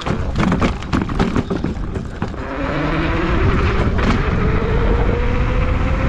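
Electric dirt bike moving off: a burst of knocks and rattles as it rolls over rough ground, then the electric motor's whine rising steadily in pitch as the bike speeds up along the street, with wind noise on the microphone building with speed.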